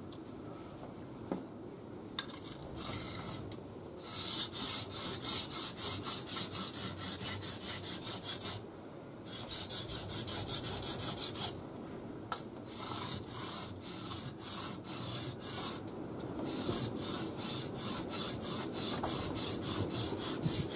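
Steel knife blade scraping back and forth on a water-wetted coarse DMT diamond sharpening plate, about three or four strokes a second in runs of a few seconds with short pauses. The scandi grind bevel is being ground flat because it is uneven.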